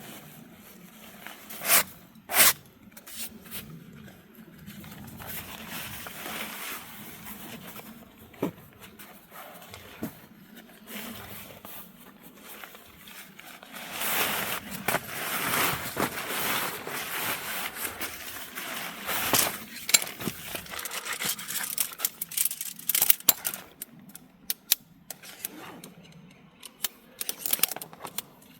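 Nylon bivy bag being handled and set up: fabric rustling and scraping, with scattered sharp clicks and knocks. There are two loud clicks about two seconds in, and a long busy stretch of rustling from about halfway through.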